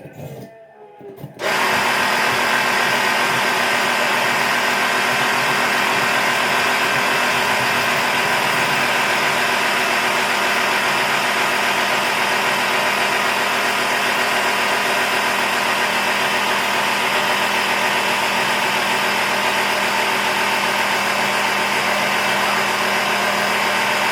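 Air horns blasting in one long continuous blast that starts abruptly about a second and a half in and holds at a steady, loud level, several steady tones sounding together.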